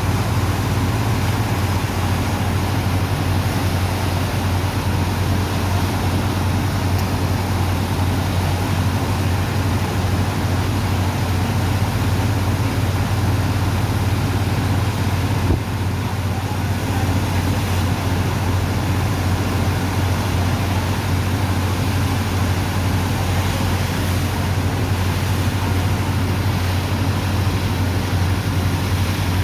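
Sand dredger's engine and pump running steadily while unloading sand from a barge: a constant low drone over a wide rushing noise, with one short knock about halfway through.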